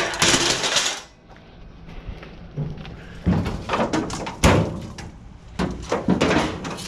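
A heavy old barbecue grill being grabbed and shifted by hand: a loud scraping rush for about a second, then a series of knocks and thumps, the sharpest about halfway through.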